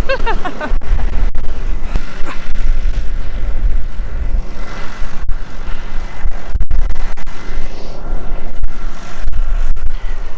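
Strong wind buffeting the microphone as a loud, gusting low rumble, over a tractor engine running steadily. A brief voice sounds right at the start.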